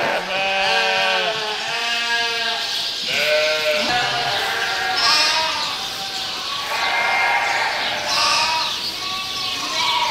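Flock of sheep bleating: many overlapping calls of about a second each, some higher-pitched than others, following one after another.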